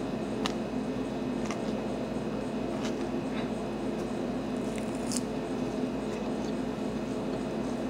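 Metal fork picking tossed salad out of a plastic container, with chewing: a few sharp, scattered clicks and crunches over a steady low hum.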